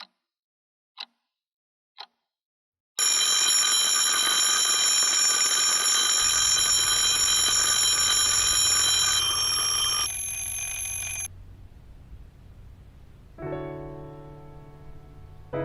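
Three short high beeps a second apart, then a loud, steady electronic alarm ringing for about eight seconds before it cuts off. Soft electric piano chords come in near the end as the song begins.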